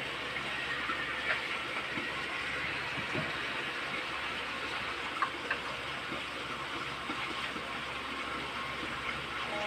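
Fish frying in hot oil in a lidded pan: a steady sizzle with a few scattered crackles and pops.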